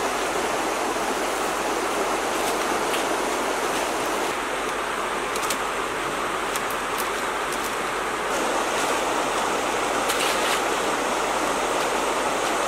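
Steady rushing of a shallow river flowing over stones, with a few faint light clicks and rustles of dry palm-leaf thatch being handled.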